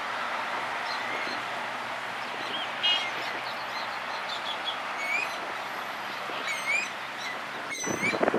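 Birds chirping: short, quick rising and falling calls, one louder call about three seconds in and a cluster of chirps toward the end, over a steady background hiss with a faint low hum. Near the end the hiss breaks off for a moment and comes back louder and rougher.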